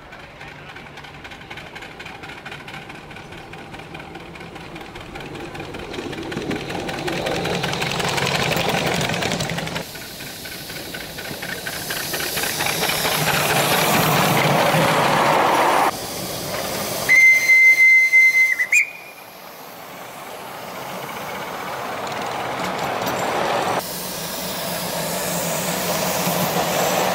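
A 5-inch gauge live-steam model locomotive running past with its steam hissing, louder as it nears. About two-thirds of the way through, a steam whistle gives one steady high blast of under two seconds, the loudest sound.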